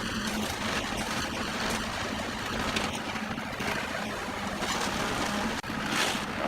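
An engine running steadily with a constant low hum, with scattered clicks and knocks over it.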